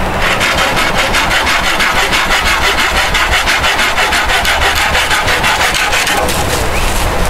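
A hand saw cutting through a green wooden branch in quick, even strokes, about five a second. It stops about six seconds in.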